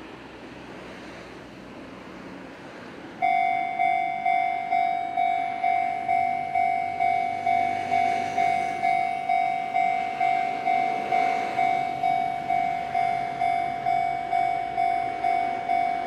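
Japanese railway level crossing warning bell starting to ring about three seconds in: a steady electronic "kan kan" tone repeating about twice a second, signalling that a train is approaching.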